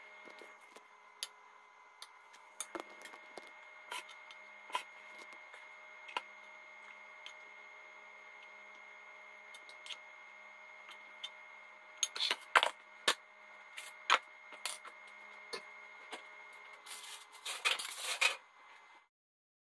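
Cookware being handled on a kitchen counter: scattered knocks and clicks of pots and lids being moved and set down, over a steady hum with a few constant tones. The knocks come more often in the second half, ending in a quick flurry of clatter before the sound cuts off.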